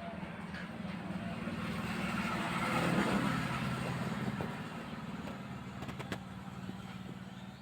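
A motor vehicle passing: a steady engine hum that grows to its loudest about three seconds in, then fades.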